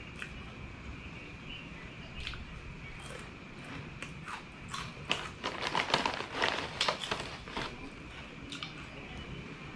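Crunching and chewing of crisp snack chips close to the microphone. A few scattered crunches build into a dense run about halfway through that lasts a few seconds, over a faint steady high whine.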